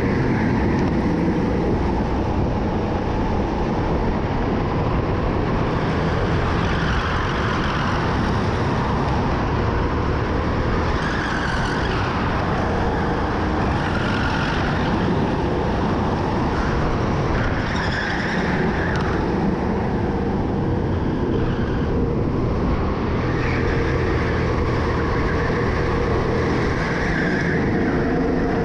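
Indoor racing go-kart running at race pace, a steady mechanical running noise with short higher tones coming and going.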